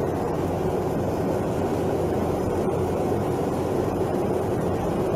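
Steady, loud drone of a military helicopter's engine and rotor, heard from inside the cabin.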